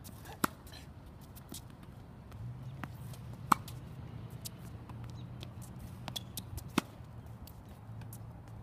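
Tennis balls being struck by a racket and bouncing: a handful of sharp, pinging pops, the loudest about three and a half seconds in, with others near the start and near seven seconds, over a low steady hum.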